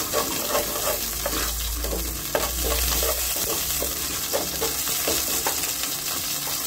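Mustard seeds sizzling in hot oil in a frying pan, stirred with a wooden spatula. A steady hiss runs under many short clicks and scrapes.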